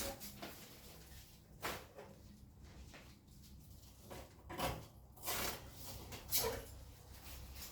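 Handling noises from unpacking a new double-door fridge: several short rustles and clatters spaced a second or two apart, like packaging or a fridge drawer being moved.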